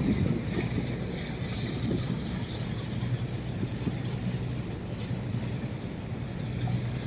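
Motorboat engine running steadily under way, a constant low hum, with water rushing past the hull and wind buffeting the microphone.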